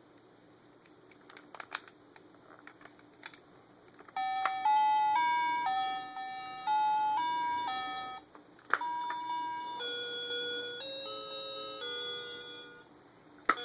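Circuit-bent Little Tikes toy tea kettle's sound chip playing a simple beeping electronic tune in two short phrases, with a click between them. A few faint clicks come before the tune starts.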